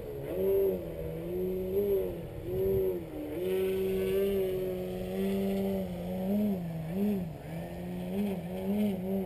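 Extra 330SC radio-controlled 3D aerobatic plane's motor and propeller drone as it hangs nose-up low over the field. The pitch rises and dips repeatedly with quick throttle changes, with short dips about three seconds in and several more near the end.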